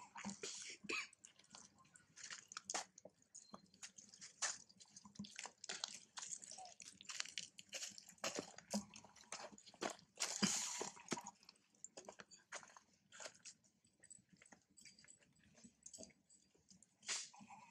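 Macaque eating: irregular crunching and crackling as it bites and chews food, with a denser patch of crunching about ten seconds in.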